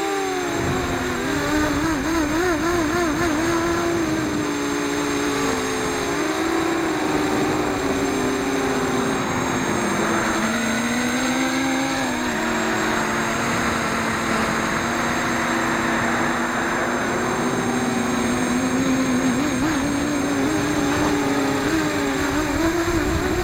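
FPV acro quadcopter's motors and propellers whining in flight, their several tones wavering and sliding up and down in pitch with the throttle, over a rush of air that swells about halfway through.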